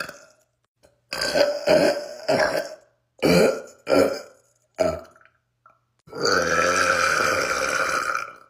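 A man burping repeatedly: several short burps in a row, then one long, drawn-out burp lasting over two seconds near the end.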